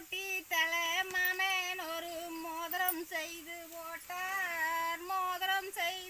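A woman singing a Tamil kummi folk work song unaccompanied, in held notes that waver in pitch, with short breaks between phrases.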